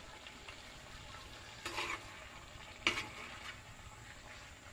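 Gravy simmering in a clay pot with a faint steady sizzle, while a metal spoon stirs in boiled egg yolks. The spoon scrapes against the pot twice, about two and three seconds in.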